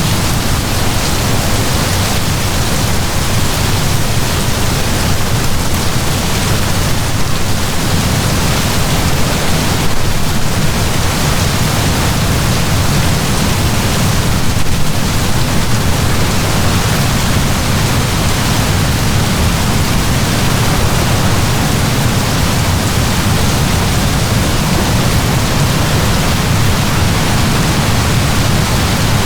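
Heavy rain falling in a steady downpour, an even hiss with a deep low rumble beneath it.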